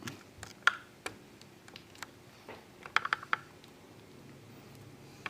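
Scattered sharp clicks and ticks as a thin pry tool works the glass of a Samsung Galaxy S5 up from its frame, with a quick cluster of them about three seconds in.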